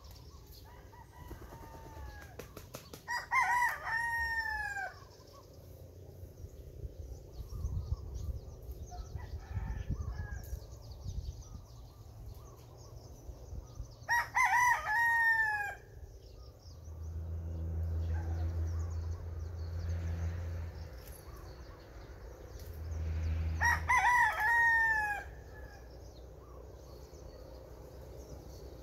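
A rooster crowing three times, each crow about two seconds long and ending on a falling drawl, roughly ten seconds apart.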